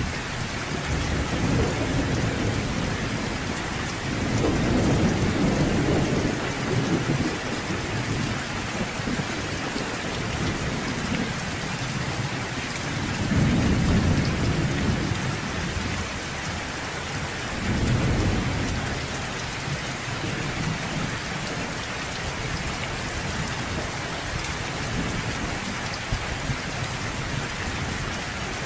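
Steady heavy rain with thunder rumbling low four times, the loudest roll about halfway through.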